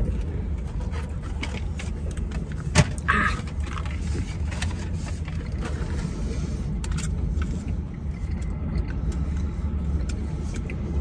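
Steady low rumble inside a car cabin, with scattered clicks and rustles of food wrappers and packaging being handled; the sharpest clicks come at the start and just before three seconds in.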